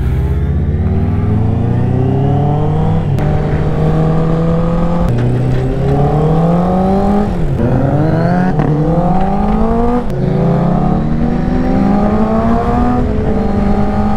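Honda 650 inline-four sportbike accelerating hard through the gears. The engine note rises, drops sharply at each of about five upshifts, then holds steady near the end at cruising speed.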